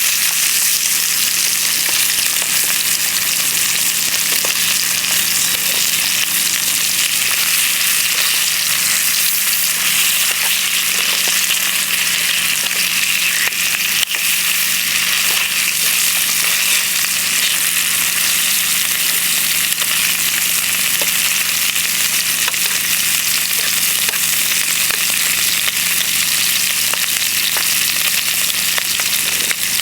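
Bacon and eggs frying in a pan, a steady, continuous sizzle.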